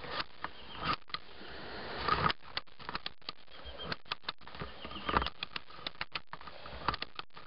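Metal ratchet-strap buckle being handled as nylon webbing is fed into its spool: a string of small irregular clicks and rattles, with a couple of louder handling knocks about two and five seconds in.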